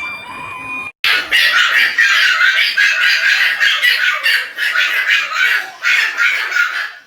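Birds squawking and chattering continuously and loudly, after a short steady whistle-like tone about a second long at the start.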